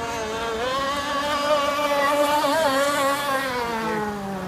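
Motorboat engine running at high speed with a high-pitched whine. It grows louder about a second in and falls steadily in pitch toward the end as the boat passes.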